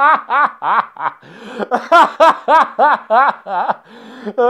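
A man laughing hard in a rapid run of short 'ha' bursts, about three or four a second. There is a brief catch of breath about a second in, then the laughter carries on.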